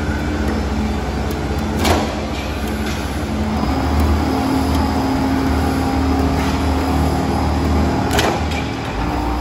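Hat channel roll forming machine running, its drive turning the forming roller stands as steel strip feeds through: a steady mechanical hum that grows a little louder about three and a half seconds in, with two sharp clacks about six seconds apart.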